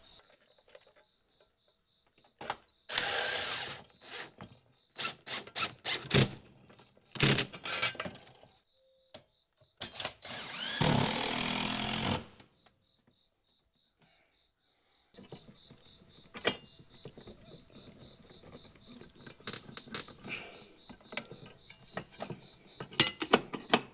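Power drill driving screws in two longer runs, about three seconds in and around eleven seconds, with short clicks and knocks of handling between them, while a generator inlet box is fastened to a wall. Crickets chirp faintly and steadily behind.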